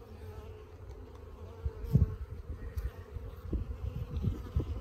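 Honeybees buzzing steadily around an open hive, with a dull thump about two seconds in and a few softer knocks near the end.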